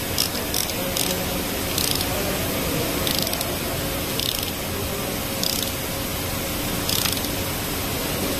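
Ratchet wrench on a long socket extension clicking in several short bursts as it tightens a bolt in a diesel cylinder head beside the fuel injector, over a steady background hiss.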